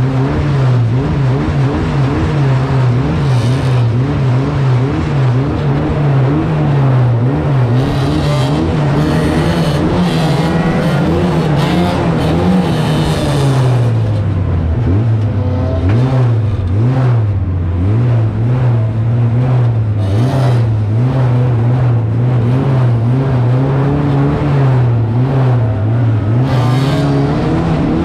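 1300cc stock car engine heard from onboard at full race pace, its pitch climbing and dropping every two to three seconds as the driver accelerates and lifts around the track. A rushing hiss joins it for several seconds around the middle.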